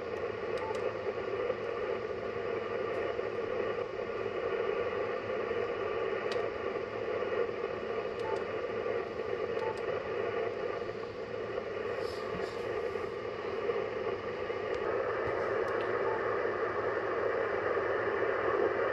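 Yaesu FT-710 HF transceiver's speaker giving steady rough static on the 10-metre band, threaded with faint steady whining tones: interference spikes from a solar inverter running under load. The noise grows a little louder in the last few seconds, with a few faint clicks.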